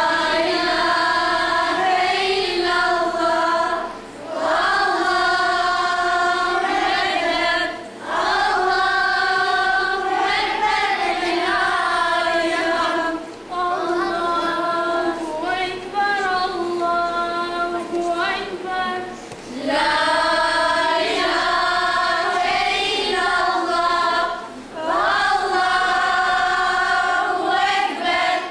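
A group of girls singing together without accompaniment, a slow devotional song sung in unison in long held phrases with short breaks for breath every few seconds.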